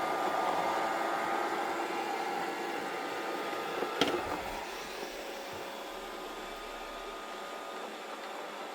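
Robot vacuum cleaner running, a steady whir with a thin whine that slowly grows fainter. A single sharp knock comes about four seconds in.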